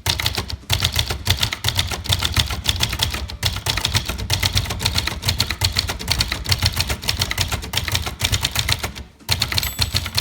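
1964 Brother De Luxe manual portable typewriter typing a line on the red ribbon setting: rapid keystrokes, several a second, with a short pause about nine seconds in. Near the end the margin bell rings as the line reaches the margin.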